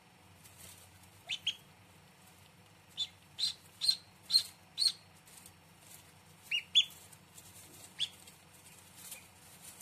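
Newly hatched ducklings peeping: short high peeps in little runs, a pair, then a quick string of five, then a pair and a single one.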